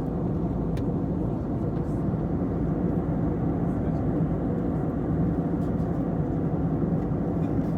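Steady low drone of engine and airflow noise heard inside an airliner's cabin.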